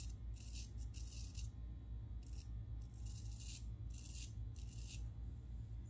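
Parker adjustable shavette razor scraping through lathered stubble on a cheek in short strokes, about seven brief rasps with small gaps between them.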